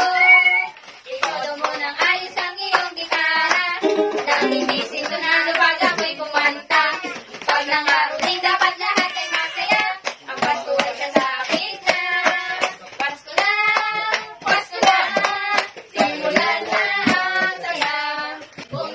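Children and young women singing a Tagalog Christmas carol together over instrumental backing, with a steady percussive beat.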